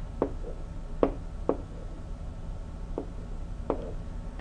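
Stylus tapping on a tablet screen during handwriting: about five short taps spread out, over a low steady hum.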